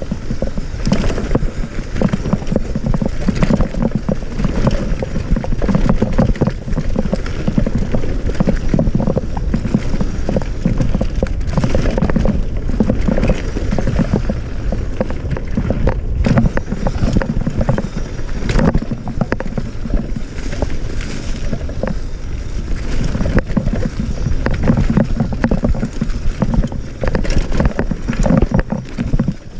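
Cross-country mountain bike descending a rough dirt singletrack at speed. Tyres rumble over the ground and the bike rattles, with frequent sharp knocks as it hits roots and stones.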